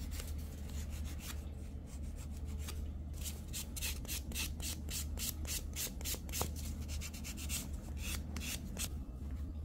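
Nail file rasping back and forth across the edge of a silk-wrapped fingernail, smoothing off the spiky protruding edges of the wrap. The strokes are quick, about three or four a second, and come thickest from a few seconds in until near the end.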